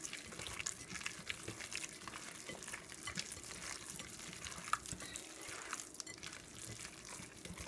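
A hand squishing and kneading raw ground turkey mixed with egg and rice in a glass bowl: quiet, wet squelching with many small irregular clicks.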